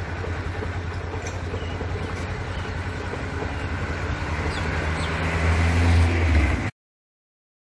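Roadside highway traffic noise: a steady rumble of passing vehicles that grows louder toward the end as one comes close, then cuts off suddenly near the end.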